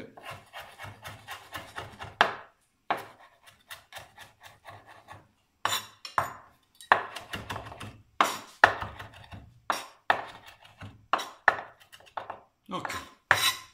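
Chef's knife finely mincing fresh parsley on a wooden cutting board: a quick run of light knife strikes at first, then louder, more spaced chops in short groups.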